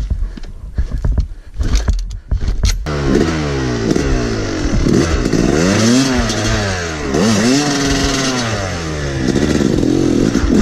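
Yamaha YZ250 two-stroke single-cylinder dirt bike: knocking and scraping for about the first three seconds, then the engine is loud and revs up and down several times.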